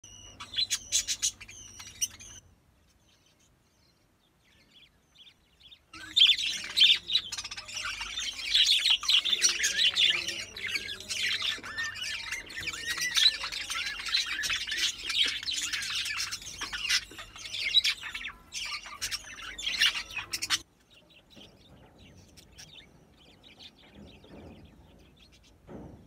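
Budgerigars chirping and chattering: a short burst at the start, a pause of a few seconds, then a long, dense run of rapid chatter that breaks off about 20 seconds in, leaving only faint chirps.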